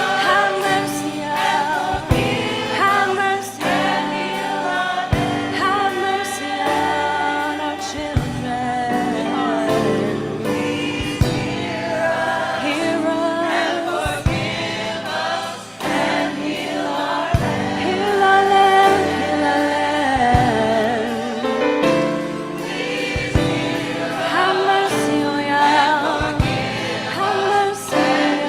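Choir singing a gospel-style song, several voices together, over a steady beat that lands about every second and a half.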